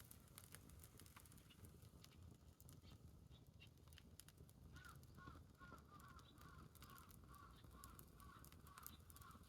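Wood bonfire crackling faintly, with scattered sharp pops over a low rumble. About halfway through, a bird calls in a quick repeated series of short calls, two to three a second, until near the end.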